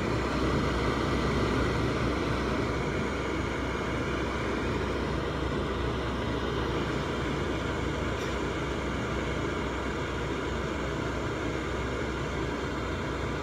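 Mitsubishi centrifugal bathroom exhaust fan running steadily, heard up close at the open housing: an even rush of air from the spinning blower wheel over a low, steady hum.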